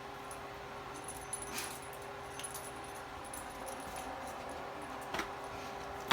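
A dog's collar tags jingling, with a few scattered light clicks and scrapes as the dog works at a box, the loudest click right at the end, over a faint steady hum.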